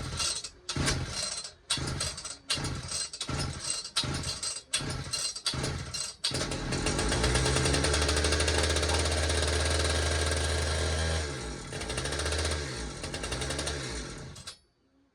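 Pioneer P-41 66cc two-stroke chainsaw being pull-started with about ten quick pulls, catching about six seconds in and running steadily for some five seconds on starting fluid. It then surges unevenly and dies out near the end, as it is not yet picking up fuel.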